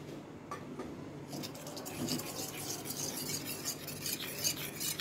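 A spoon stirring a cornflour-and-water slurry, with quick clinking and scraping against its container from about a second in.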